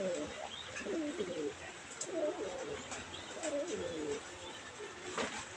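Pigeon cooing: about four low, warbling coo phrases over the first four seconds or so. Faint higher chirps of other cage birds come through behind it, and there is a single click about five seconds in.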